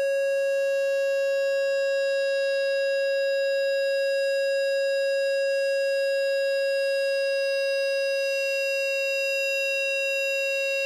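A single steady pitched tone with overtones, held without wavering and easing slightly in level near the end.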